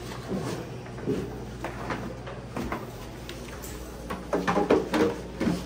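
Scattered light knocks and clatter of trays and tableware being set on a countertop, over a steady low hum, with faint voices in the second half.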